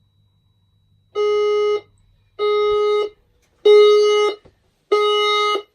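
Fire alarm sounder giving four pulsed tones of one steady pitch, each about two-thirds of a second long with short gaps between. This is the walk-test signal confirming that a smoke detector has activated.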